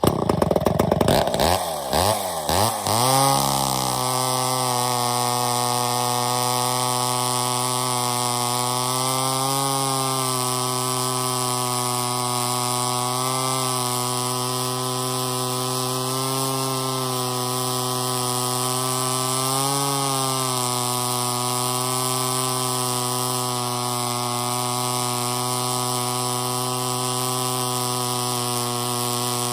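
Two-stroke Poulan 306 chainsaw power head of a Wright 100 reciprocating blade saw running. It comes in suddenly with the engine speed swinging up and down for the first few seconds, then settles into a steady run with small brief rises in pitch every few seconds.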